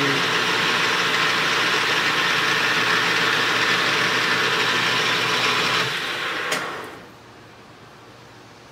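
Metal lathe running steadily, then switched off about six seconds in. Its sound dies away over about a second, with one sharp click as it stops, leaving a faint steady hiss.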